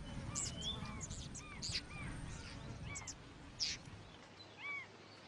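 Birds calling over a faint natural background: a short arching chirp repeats roughly every half second, mixed with quick, sharp, high-pitched chips.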